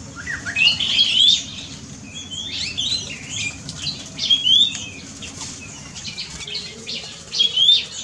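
Several birds in an aviary chirping and whistling together: a busy mix of short chirps and quick rising and falling whistles, overlapping throughout, with a louder cluster of calls near the end.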